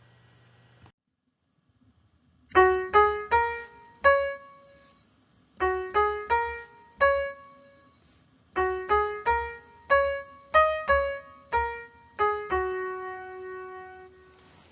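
Solo piano melody played in short phrases of separate struck notes, ending on a long held note that fades.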